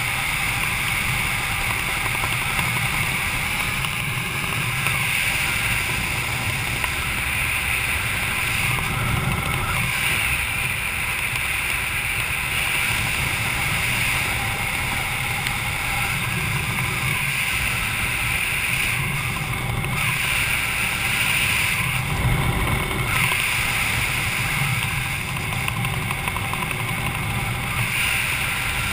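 Wind rushing over the camera microphone of a skydiver descending under an open parachute canopy: a steady low rumble with a hissing band that swells and fades every few seconds.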